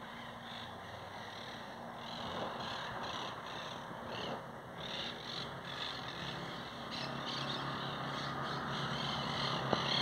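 A flock of monk parakeets chattering, with many short, harsh high calls coming irregularly throughout, over a steady low drone like a distant engine.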